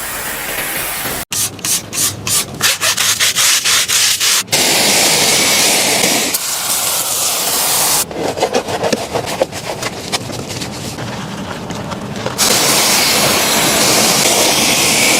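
Quick repeated rubbing or scrubbing strokes on a surface, in two runs, alternating with stretches of steady spraying hiss.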